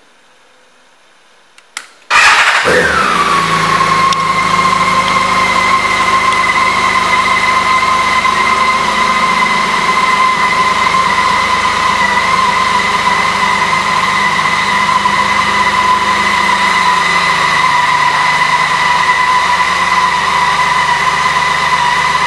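2013 BMW K 1600 GT's inline-six engine, fitted with an aftermarket exhaust, being started about two seconds in after a small click. It flares briefly, then settles into a steady idle with a high, even whine over a low rumble.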